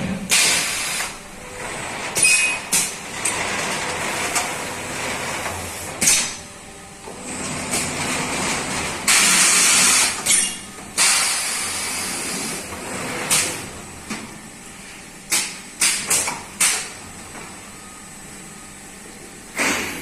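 Pneumatic FIBC belt-loop centring and cutting machine working through its cycle: repeated bursts of compressed-air hiss from its cylinders, the longest lasting about a second and a half, mixed with sharp mechanical clacks. The clacks come close together as a quick run near the middle.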